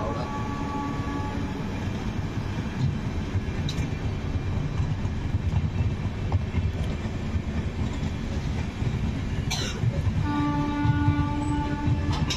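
Indian Railways passenger coaches rolling past: a steady low rumble with sharp wheel clacks, the loudest about nine and a half seconds in. Near the end a steady pitched tone sounds for about two seconds.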